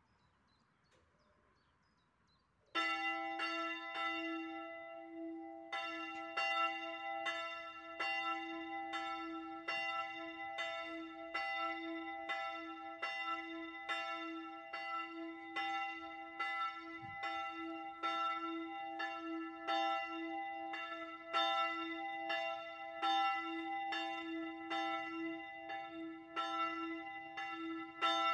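A single church bell, the tower's third bell, starts ringing about three seconds in, its clapper striking over and over in a steady rhythm, with the bell's deep hum carrying on between strikes.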